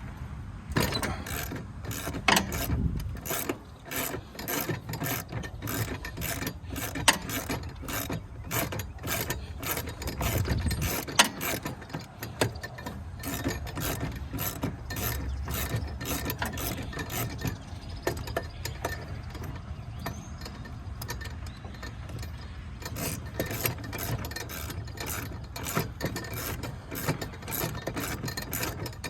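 Socket ratchet wrench clicking in quick runs of strokes, turning a 15 mm bolt.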